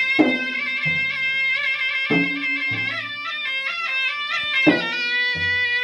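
Bugis-Makassar gendang ensemble: double-headed barrel drums, one struck with a curved stick and one by hand, play deep strokes in a repeating pattern about every two and a half seconds. Over them a reed pipe holds a continuous melody without breaks.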